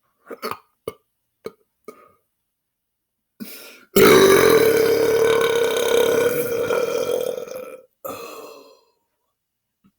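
A man's loud, drawn-out belch, held at a steady pitch for almost four seconds and then trailing into a shorter second belch. It is brought up without any drink. A few short clicks come before it.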